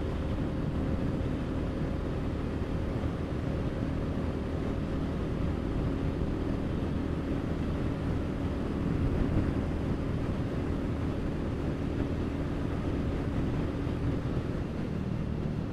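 Royal Enfield Classic 350's single-cylinder engine running steadily at full throttle in fifth gear, flat out near its top speed of about 120 km/h, with wind rushing over the microphone.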